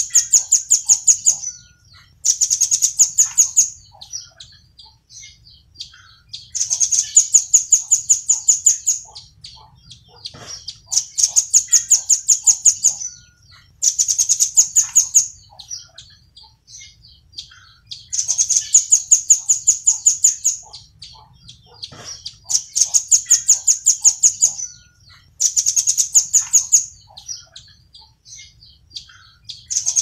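Velvet-fronted nuthatch calling: high-pitched trills of rapid, sharp chip notes, each about two seconds long, repeated every three to four seconds, with faint softer chirps in between.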